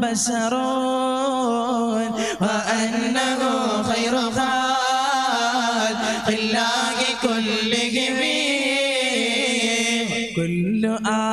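A male voice chanting a slow devotional melody through a PA system, drawing out long notes that bend up and down.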